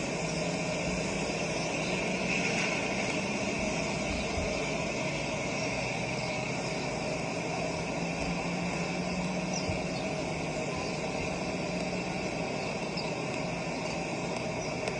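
Steady engine noise: a constant low hum under an even hiss, with no change in pitch or level.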